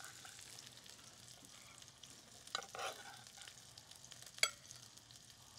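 Faint sizzle from pans on the stove, with a few light clicks of a metal spoon against a skillet as roasted Brussels sprouts and cauliflower are spooned out onto a plate.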